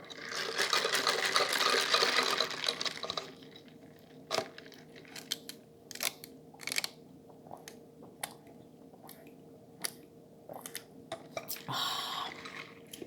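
Drink sucked up through a metal straw with a loud slurping, bubbling hiss for about three seconds. Then scattered wet mouth clicks and smacks of chewing, and a short slurp near the end.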